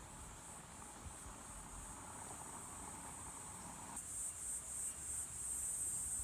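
Insects chirring outdoors, a steady high-pitched trill with a slight pulse that grows louder about four seconds in.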